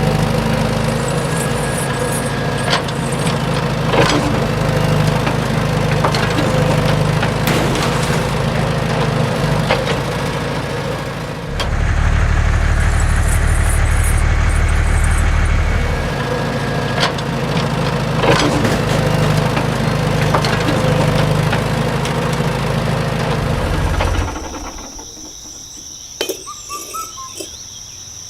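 Small engine of a DIY model vehicle running with a steady hum and occasional knocks. It runs harder for a few seconds in the middle, then cuts off about 24 s in, leaving a steady high whine and light clicks.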